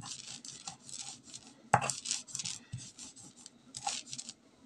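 Sil-batta stone slab and roller grinding dry roasted sesame seeds by hand: a gritty rasping scrape on each push and pull, about three strokes a second, with one sharp knock of stone on stone nearly two seconds in.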